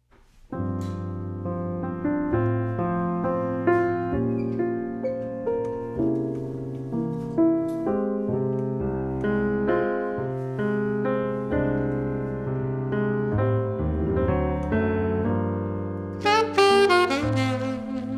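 Grand piano playing an introduction of sustained chords over bass notes. An alto saxophone comes in loudly about sixteen seconds in.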